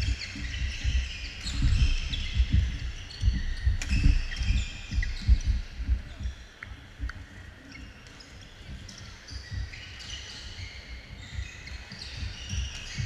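Badminton players' footwork on a hardwood gym floor: rapid heavy thuds of feet, with high sneaker squeaks and a few sharp racket hits on the shuttle. The thudding dies down about six seconds in, leaving scattered squeaks from the surrounding courts.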